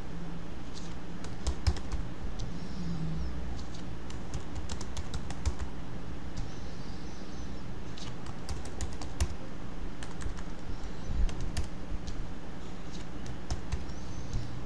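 Typing on a computer keyboard: irregular runs of key clicks with short pauses between words, over a steady low hum.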